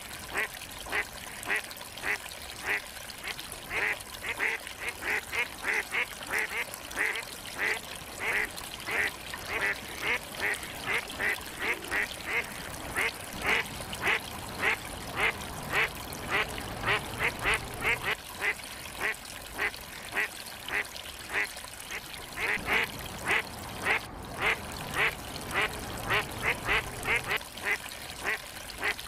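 Ducks calling in a rapid, unbroken run of short calls, about two or three a second.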